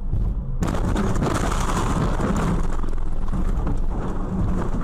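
Car crash heard from inside the dashcam car: under a low engine drone, a sudden loud impact about half a second in, followed by several seconds of crunching metal and breaking glass.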